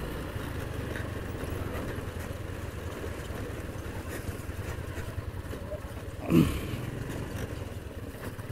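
Honda scooter riding over a rough dirt track: a steady low rumble of its engine and the road. About six seconds in, a short voiced exclamation rises above it.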